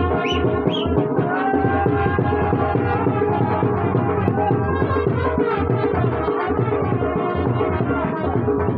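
Band baja (Indian wedding brass band) playing dance music: a steady, driving drum beat under a held melody line.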